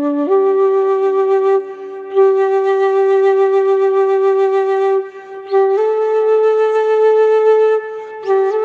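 Flute playing a slow melody of long held notes, stepping up in pitch a few times, with short breaks between phrases.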